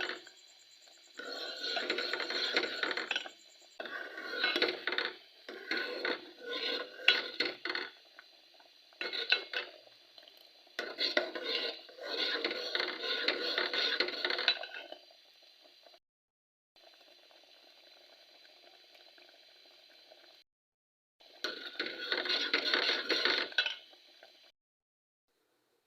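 A spoon scraping and clinking against cookware in several bursts of a few seconds each, with short pauses between.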